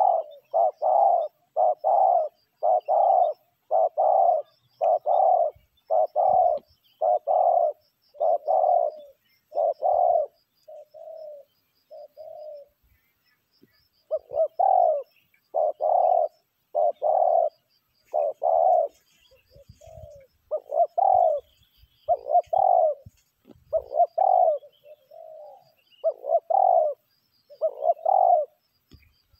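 Spotted doves cooing: a long run of loud, evenly repeated coo notes, a little over one a second, breaking off briefly about halfway through before starting again. Faint chirps of small birds sound above them.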